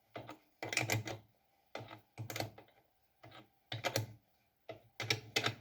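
Irregular short clusters of clicks and taps, roughly one every half second to a second, from hand-adjusting and tightening parts on an unpowered Craftsman 109 metal lathe.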